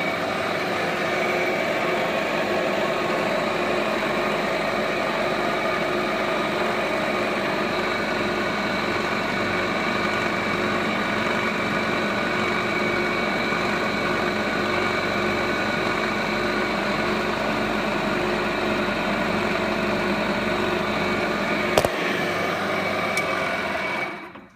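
Lagun FTV-2S vertical milling machine running steadily under power, a constant mechanical drone with several steady tones, in good running order. There is a single sharp click about 22 seconds in, and the sound cuts off abruptly just before the end.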